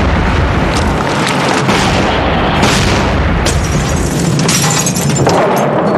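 Explosion sound effect: a long, loud, rumbling blast with several fresh booms going off in the middle of it.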